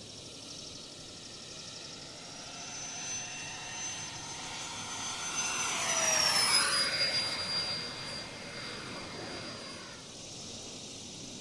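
Radio-controlled F4D Skyray model jet's 80mm electric ducted fan whining through a high-speed low pass: the whine grows louder, peaks about six seconds in with a clear drop in pitch as the jet goes by, then fades away.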